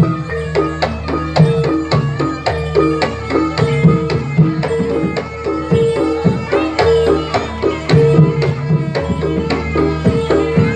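Live Javanese jaranan music: a hand drum and struck tuned metal gongs playing a fast, steadily repeating pattern.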